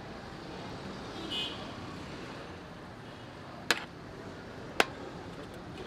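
A metal ladle clanking twice against a large metal cooking pot while pulao rice is stirred, the two knocks about a second apart past the middle, over steady street background noise.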